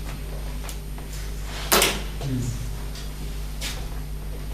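A steady low electrical hum of room equipment, with one sharp knock a little under two seconds in and a few fainter clicks.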